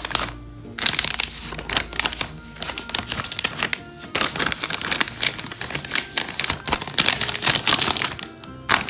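Bags crinkling and rustling in irregular bursts as shiitake logs are put into them, over light background music.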